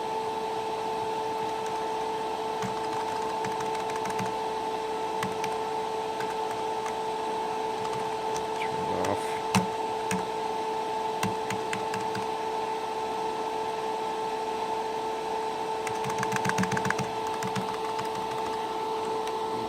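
Old desktop PC running loudly, its cooling fans giving a steady high hum. Scattered light clicks over it, with a short run of rapid clicking about sixteen seconds in.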